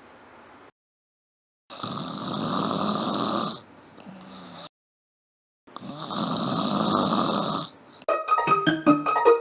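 A person snoring loudly: two long snores of about two seconds each, with a pause between them. Plucked, bouncy music starts near the end.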